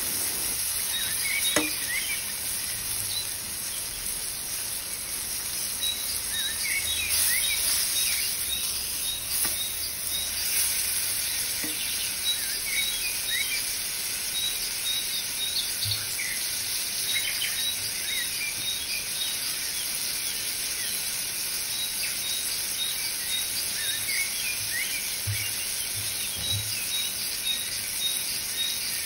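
Background birdsong track of many short bird chirps, over the steady sizzle of a chicken breast frying in butter in a pan.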